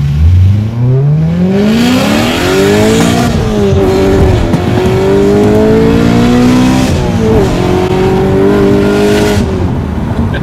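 BMW E92 M3's V8 with a valved IPE exhaust, heard from inside the cabin, revving hard under acceleration through the gears with the exhaust valves open. The pitch climbs for about three seconds, drops at an upshift, climbs again, drops at a second shift, then falls away as the throttle eases near the end.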